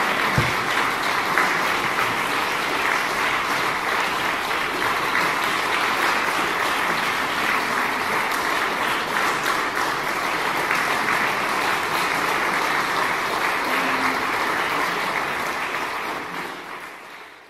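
Audience applauding steadily, with one low thump just after the start; the applause fades out near the end.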